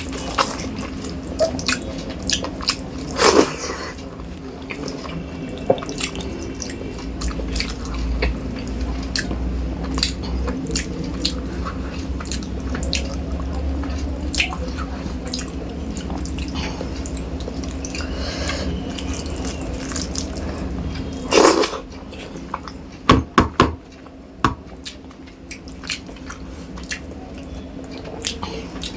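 Wet chewing and mouth sounds of a person eating rice with fish curry, with many scattered clicks and smacks. A few louder sharp sounds come a few seconds in and again about three-quarters through, over a steady low hum.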